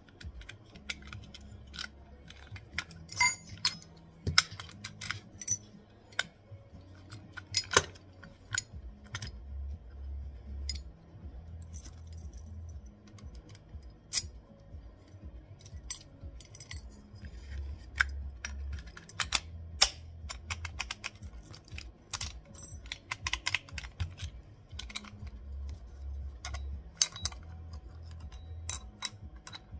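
Brava Metro lever lockset's metal parts clicking and clinking as they are handled and fitted by hand: many scattered sharp clicks at an uneven pace.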